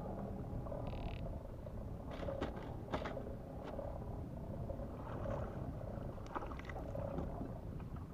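Wind rumbling on the microphone over choppy water, with a few light clicks and knocks scattered through it.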